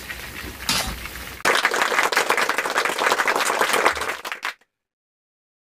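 Chicken wings deep-frying in a pan of hot oil: a quiet sizzle, then a sudden loud, dense crackle about a second and a half in that cuts off abruptly near the end.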